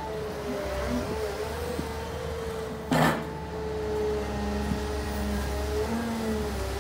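Caterpillar M322D wheeled excavator running, its diesel engine humming under a steady hydraulic whine as the boom and bucket are worked. A single sharp clunk sounds about three seconds in.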